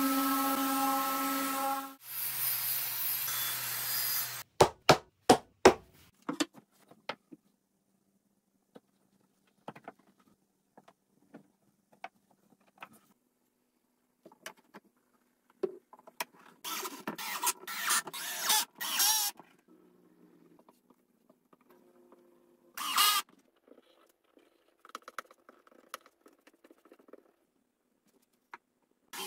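Electric random orbital sander with an extraction hose running on a plywood tabletop for about two seconds, then stopping. A lower hum follows, then a quick run of about five sharp knocks, then scattered small clicks and a few short rasping bursts from hand work on plywood parts.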